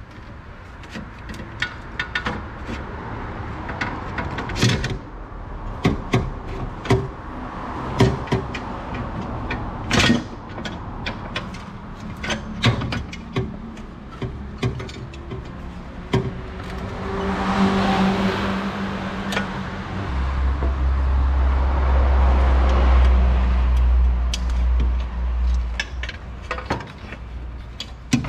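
Scattered sharp clicks and knocks, like hand tools on metal during work on a car. A vehicle goes by, swelling and fading around the middle, followed by a low rumble for several seconds.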